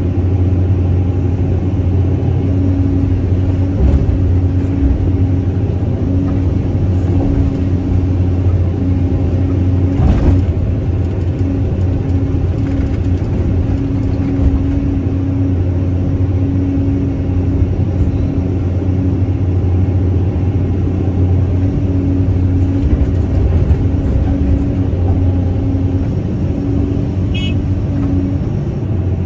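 Caterpillar 320C excavator's diesel engine running steadily while the machine digs, heard from the operator's cab, with a single knock about ten seconds in.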